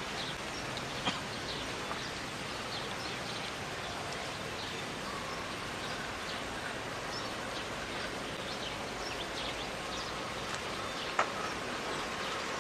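Steady outdoor background noise with scattered short, faint high chirps throughout, and two sharp clicks, one about a second in and one near the end.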